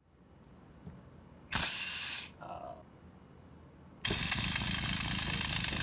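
3D-printed liquid piston rotary engine running on compressed air, a buzzing hiss: a short burst about a second and a half in, then after a pause it starts again about four seconds in and runs steadily.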